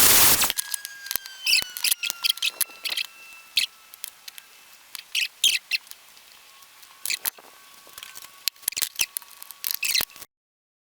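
A power cutting tool grinding through the door handle's metal stops about half a second in, followed by scattered light metallic clicks and clinks of the handle and tools being handled, with a faint thin ringing tone. The sound cuts off abruptly near the end.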